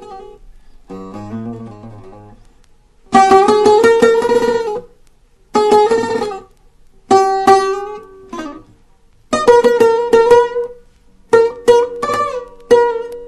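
Buzuq, a long-necked fretted lute, played in an improvised taqsim. It plays short phrases of quickly plucked notes with brief pauses between them. A quieter, lower phrase comes near the start, and a run of fast repeated strokes near the end.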